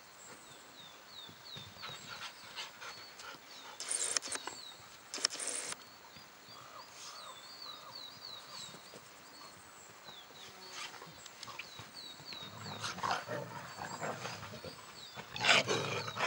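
A dog making short noisy sounds, loudest near the end, with two brief bursts about four and five seconds in. Behind it, a small bird's short chirps repeat throughout.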